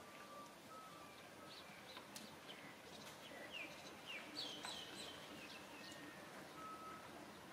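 Faint high-pitched chirping calls, a cluster of short chirps each falling in pitch about halfway through, with short steady whistled notes repeating at a lower pitch over quiet outdoor background.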